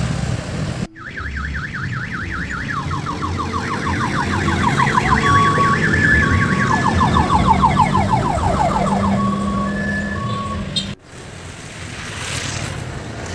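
Electronic siren-style vehicle horn sounding a rapid up-and-down warble, with a second warble at a lower pitch overlapping it and short steady beeps, over a low engine rumble. It starts abruptly about a second in and cuts off sharply near the end.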